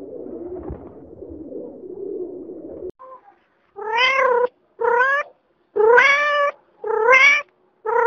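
Rock pigeon cooing low and continuously, then a kitten meowing five times. The meows come about once a second, each short and rising slightly in pitch, and are the loudest sound.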